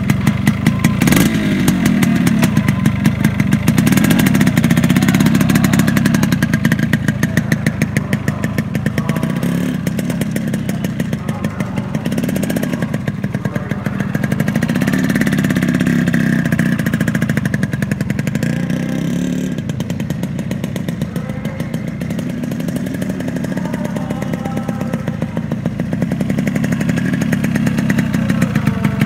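Yamaha RX115's two-stroke single-cylinder engine running as the bike is ridden slowly around, its revs rising and falling several times. A single sharp knock about a second in.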